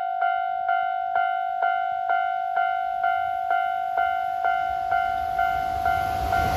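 Japanese railway level-crossing alarm: an electronic bell striking a steady ding about twice a second. The rumble of an approaching train rises near the end.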